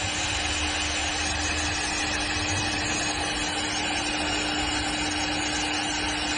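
CNC wood-turning lathe running steadily, its motors giving a constant hum over an even mechanical noise, with no wood being cut.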